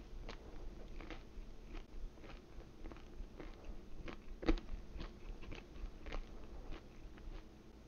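A person chewing a mouthful of pizza crust close to the microphone, crunching about twice a second, with one louder crunch a little past the middle.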